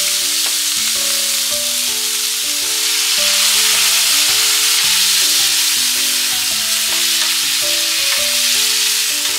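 Pork, green pepper and bamboo shoot strips sizzling in hot oil as they are stir-fried and stirred with a wooden spatula in a frying pan. Soft background music with held notes plays under the steady sizzle.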